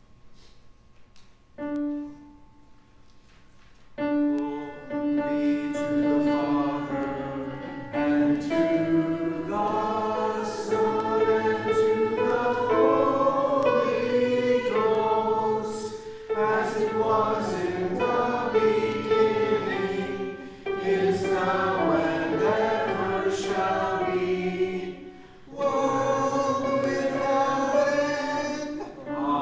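A group of voices singing a hymn in sustained phrases with short breaths between them. A single short note sounds about two seconds in, and the singing begins about four seconds in.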